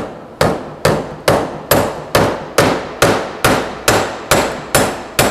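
Wooden-handled hammer driving roofing nails through a steel connector plate into pine framing: a steady run of about a dozen sharp blows, roughly two a second.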